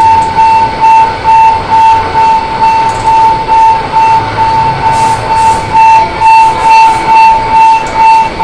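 Loud electronic beeping at one steady pitch, repeating close to three times a second like a warning beeper.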